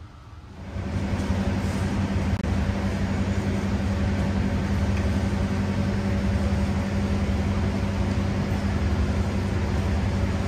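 Diesel locomotive engine idling steadily, a low even drone that swells in within the first second and then holds.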